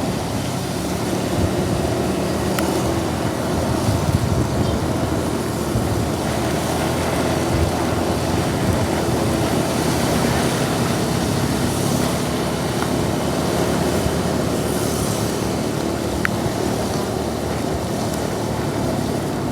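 A motor vehicle engine running steadily, with a constant rushing noise over it.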